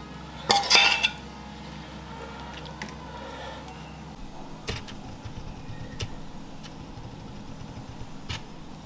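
A metal spoon scraping and clinking against a ceramic plate once, briefly, about half a second in, then a low steady hum with a few light taps.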